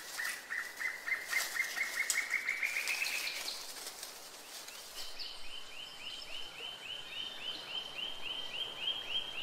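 Tropical rainforest ambience with a rapid series of repeated chirping calls that slowly rise in pitch and stop a little past the middle. After a short gap, a higher series of repeated chirps follows at about four a second.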